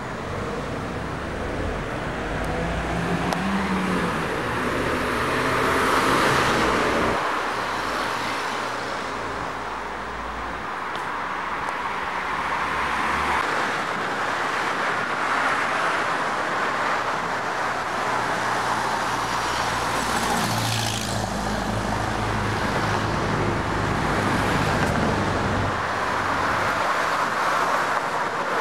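Night street traffic: cars driving by with a steady engine and tyre noise, swelling louder as vehicles pass about six seconds in and again about twenty-one seconds in.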